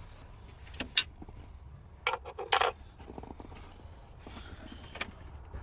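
Small metal clinks and scrapes from fitting and tightening the nut and lock washer on the starter's main positive cable terminal: a couple of sharp clicks about a second in, a short ringing clatter around two seconds in, and another click near the end.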